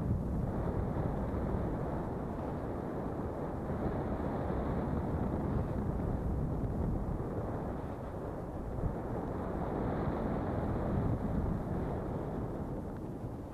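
Airflow rushing over the microphone of a paraglider pilot's camera in flight: a steady low wind rush that swells and eases a little.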